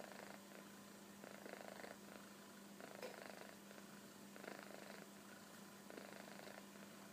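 Munchkin kitten snoring softly in its sleep: a faint rasp with each breath, about every second and a half.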